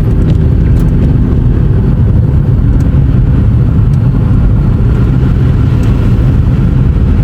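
Car driving: a loud, steady low rumble of road and wind noise, with a few faint ticks.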